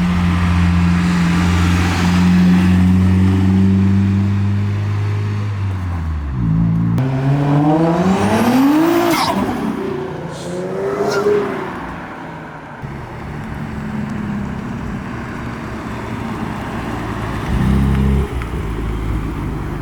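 Car engine running steadily, then revved hard about seven seconds in: the note climbs sharply and falls away. A second, shorter rev follows about a second later, then the engine settles to a lower, steady idle.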